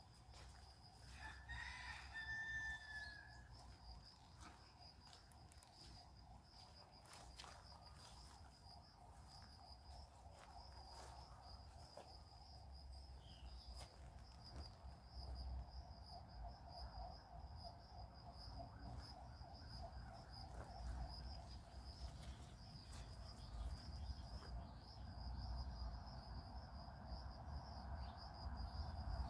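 Faint countryside ambience: a rooster crows once in the distance about two seconds in, over a steady high insect drone and a low rumble.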